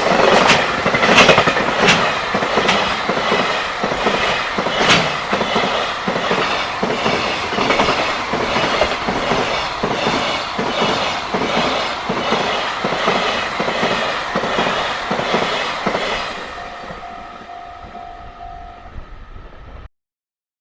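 Freight train running fast over a level crossing, its wheels clattering over the rail joints in a steady rhythm of clacks for about sixteen seconds. As the last wagons clear, the clatter fades and the crossing's warning bell is heard ringing in a steady on-off beat.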